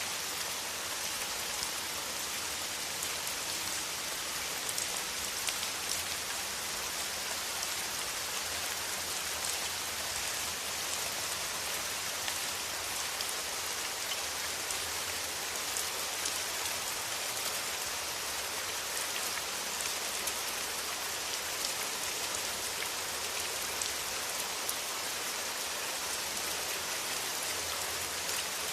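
Steady rain falling, a dense patter of raindrops on surfaces with an even hiss.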